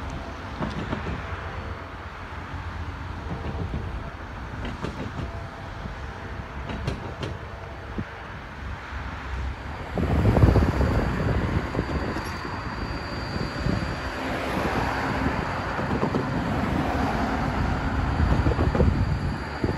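Wind and a steady low rumble. About halfway through this gives way to louder road traffic: cars driving over a railroad grade crossing, the first one loudest as it passes.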